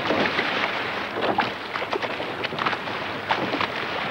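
Water rushing and splashing along a sailing coble's hull as she moves under sail, with wind on the microphone. The sound is a steady hiss broken by irregular small splashes.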